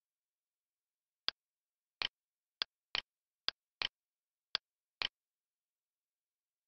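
Computer mouse clicking while the map view is zoomed and moved: eight sharp clicks spread irregularly over about four seconds, several heard as a quick press-and-release double click, with dead silence between them.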